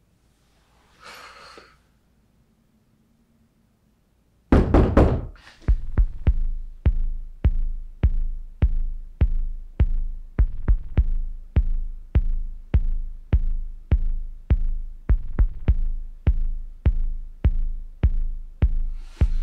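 A faint breath, then three loud knocks in quick succession about four and a half seconds in, followed by a horror score's deep, steady heartbeat-like pulse of paired beats, about one pair a second.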